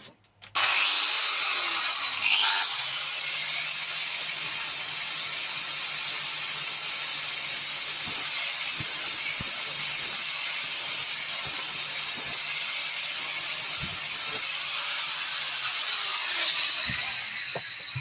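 Angle grinder with a flap disc grinding down the end of a small metal plate. It starts suddenly about half a second in, runs steadily and winds down near the end.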